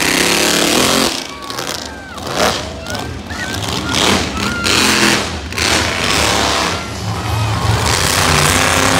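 Monster truck engine running loud as the truck drives around the arena: it drops back about a second in and builds up again from about four seconds in. Voices call out from the crowd over it.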